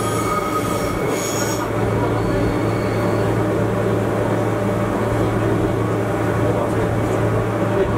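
Gornergrat Bahn electric cog-railway train running uphill: a steady motor and running-gear hum with a rumble. A high wheel squeal fades out about a second and a half in.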